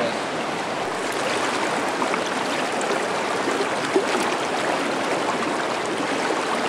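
Steady rush of river water running over a rocky riffle, with a single light click about four seconds in.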